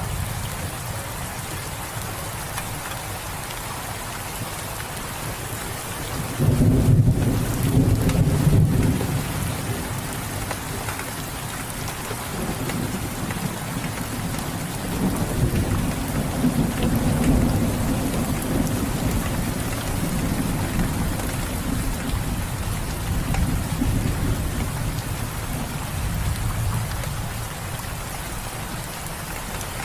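Steady rain falling, with thunder rumbling: a loud rumble starts about six seconds in and lasts a few seconds, followed by a longer, softer rolling rumble through the middle.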